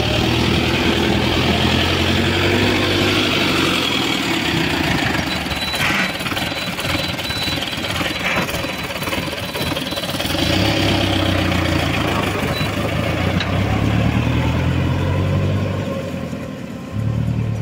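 Sonalika DI 60 4WD tractor's diesel engine running as it hauls a trailer loaded with soil. The engine note grows louder for a few seconds past the middle, then drops away as the tractor moves off.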